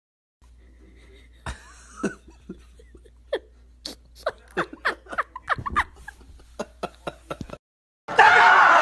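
A run of very short, high-pitched squeaks, each gliding quickly up or down in pitch, two or three a second and coming faster in the middle. Near the end they stop and a loud, dense sound cuts in.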